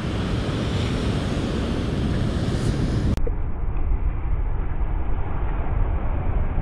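Ocean swell breaking against a sandstone rock ledge: a steady wash of surf and spray, with wind rumbling on the microphone. About three seconds in, the sound suddenly turns duller.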